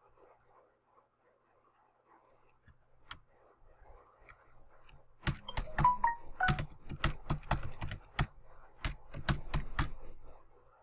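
Typing on a computer keyboard: a quick, uneven run of keystrokes that starts about five seconds in and stops just before the end, after a mostly quiet stretch with a single faint click.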